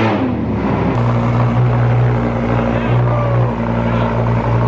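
Lamborghini engine just after start-up: the start-up flare drops in pitch during the first second, then settles into a steady, loud fast idle.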